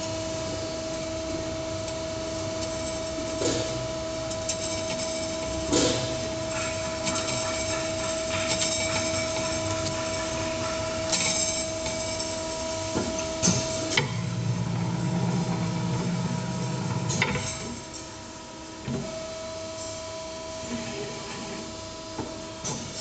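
An 8-tube evaporator tube bending machine running: a steady whine with scattered clunks and knocks from its moving parts, and a deeper motor hum from about two-thirds of the way in for a few seconds.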